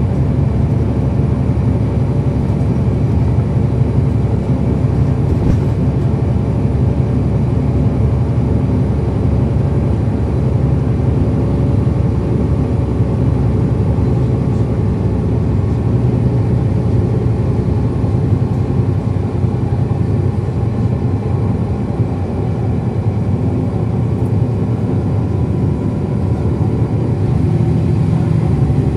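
A 2010 NABI 40-SFW transit bus's Cummins ISL9 diesel running steadily under way, heard from inside the cabin with road and drivetrain noise.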